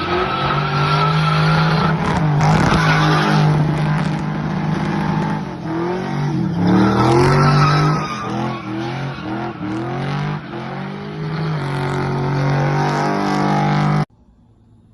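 Loud car engine running at high revs, a steady drone that swings up and down in a run of quick revs in the middle, then cuts off abruptly near the end.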